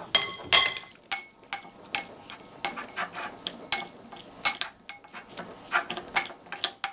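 Metal spoon clinking irregularly against a glass mixing bowl, about two sharp, ringing clinks a second, over the soft squelch of raw chicken pieces being mixed with spice paste and chopped herbs.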